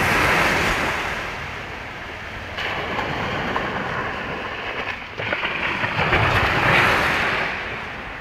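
Sea surf breaking on a sandy beach and washing up the shore in surges: a wave crashes at the start, the wash eases, and another loud surge builds about five seconds in before fading near the end.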